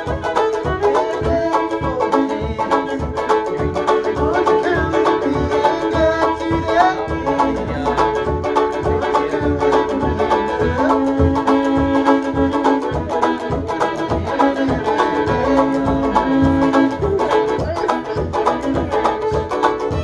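Fiddle and five-string-style banjo playing a tune together, the fiddle bowing sustained melody notes over the banjo's steady plucked rhythm.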